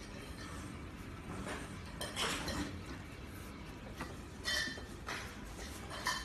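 Handling noise from a stretch-fabric counter cover being pulled and tucked over its frame edge: soft rustling with a few light knocks and clinks, about 2, 4.5, 5 and 6 seconds in.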